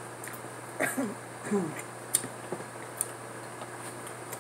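Someone eating close to the microphone: two short vocal sounds falling in pitch about a second in, then a few sharp mouth clicks, over a steady low hum.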